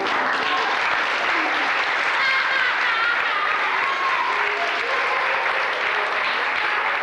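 Audience applauding in a hall, with a few voices calling out over the clapping.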